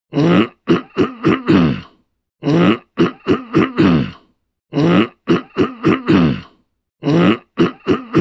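A person clearing their throat in four repeated bouts, about two and a third seconds apart. Each bout is a quick run of about four short, voiced rasping pulses, with silence between bouts.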